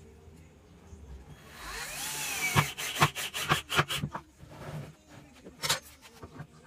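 Cordless drill whirring up in pitch as it bores into the plywood box, followed by a quick run of sharp clicks and knocks; another pair of knocks comes near the end.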